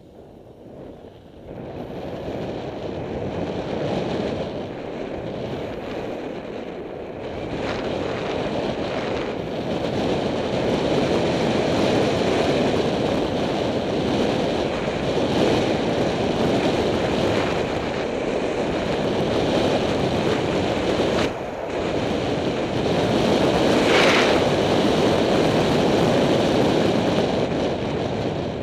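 Wind rushing over a helmet camera's microphone on a fast bicycle descent, building over the first couple of seconds, then steady. A brief higher-pitched sound cuts through about three-quarters of the way in.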